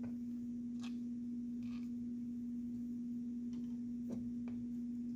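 A steady low hum on one unchanging pitch, with a few faint clicks and rustles as the thin thermistor wires are handled and split apart.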